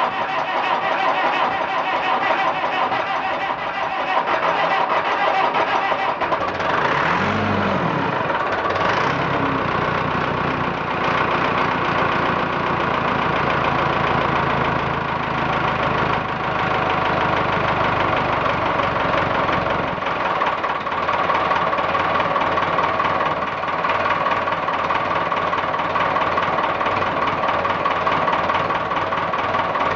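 Massey Ferguson 275's four-cylinder Perkins diesel engine running through a cold start. There is a rise and fall in pitch about seven to nine seconds in, then it settles into steady running.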